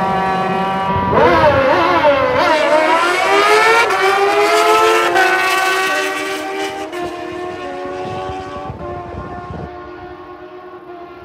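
Two sport motorcycles launching on a drag strip. The engines rev hard about a second in and climb through the gears, with sharp drops in pitch at each upshift. The sound fades as the bikes pull away down the strip.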